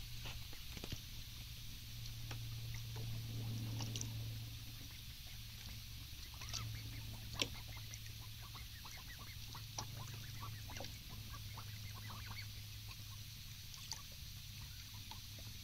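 Mallard ducks giving short quacks and soft calls, thickest in a cluster between about six and twelve seconds in, over a steady low rumble.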